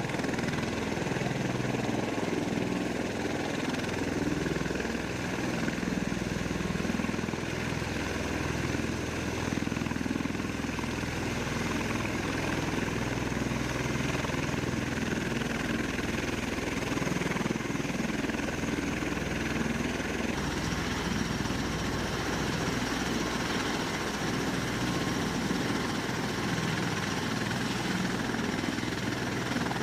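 Bell Boeing V-22 Osprey tiltrotor running, its twin turboshaft engines and proprotors making a steady, continuous noise. The upper tones shift slightly about twenty seconds in.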